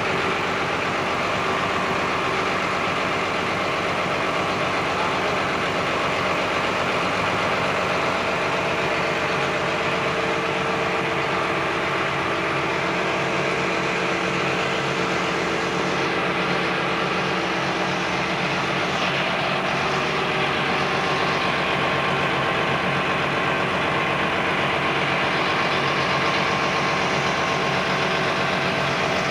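FAWDE six-cylinder diesel engine running steadily at a constant speed on a test stand, a continuous loud engine drone.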